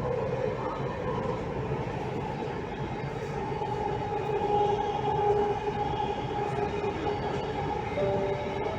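Delhi Metro train running between stations, heard from inside the coach: a steady rumble with a humming tone over it.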